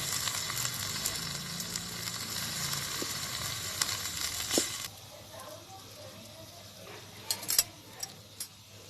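Radish-leaf greens sizzling in a hot pan with water just added, a loud steady hiss that cuts off suddenly about five seconds in. A few sharp clicks follow near the end.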